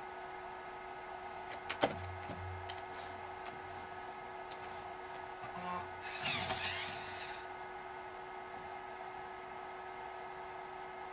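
Sony MP-F75W Macintosh floppy drive auto-ejecting a disk: a short motorized whirr of about a second as the disk is pushed out. A few sharp clicks come before it, over a steady electrical hum.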